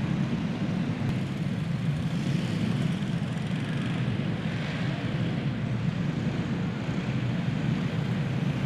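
A pack of racing karts with single-cylinder Predator four-stroke engines, running together at reduced pace under a caution. The engine sound holds steady, without sharp revs or impacts.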